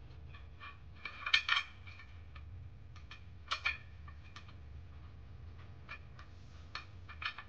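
Scattered light metal clinks of bolts and hand tools as bolts are started into place, a few louder clinks about a second and a half and three and a half seconds in, over a steady low hum.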